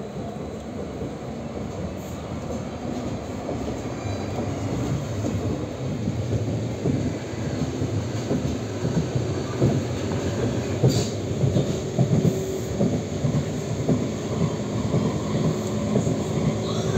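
Passenger train running, heard from inside the carriage: a steady low rumble of wheels on the rails with many short knocks, growing louder a few seconds in.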